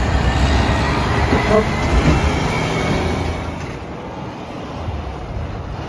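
Semi truck with a flatbed trailer passing close: engine and tyre rumble that swells to a peak about two seconds in, then fades.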